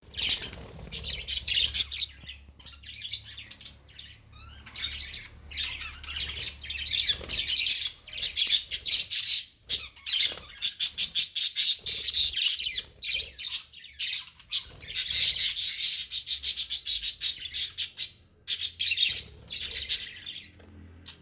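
A group of small birds chirping and squawking in quick, busy bursts, with brief lulls between bursts.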